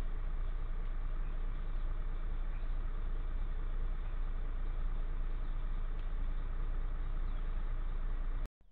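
A vehicle engine running steadily, a low even drone.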